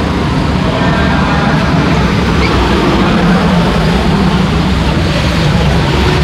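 Steady city road traffic: engines of cars and motorbikes running along a busy street, with no single vehicle standing out.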